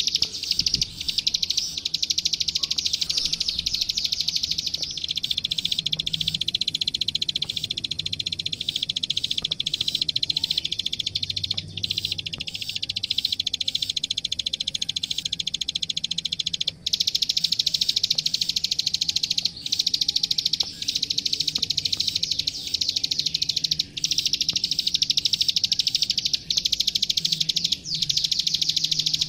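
Klik-klik (ciblek sawah) songbird singing rapidly and nonstop, a fast run of high, sharp chirping notes with only a brief pause partway through.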